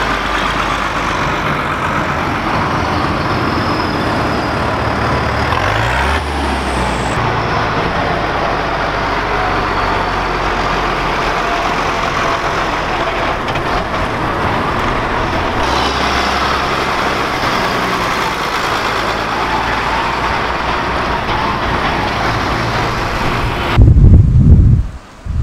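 Diesel engines of large farm tractors, among them a Ford TW-35, running steadily as the tractors drive past, the engine note shifting as they go by. Near the end there is a much louder low rumble.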